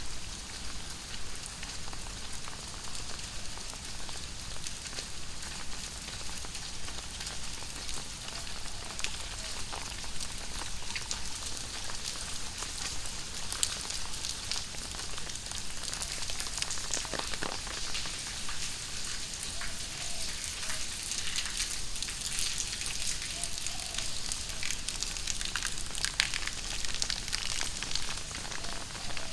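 Very heavy tropical rain falling steadily, with many sharp close drop hits.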